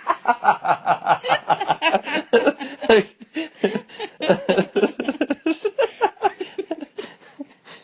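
A person laughing in a long, unbroken run of quick chuckles.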